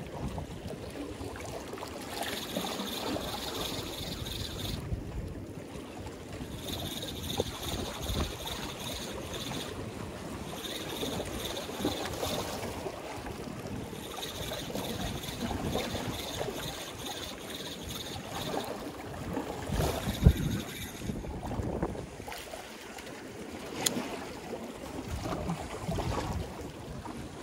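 Sea water washing and splashing against a concrete block breakwater, with wind buffeting the microphone. A sharp knock sounds once about two-thirds of the way through.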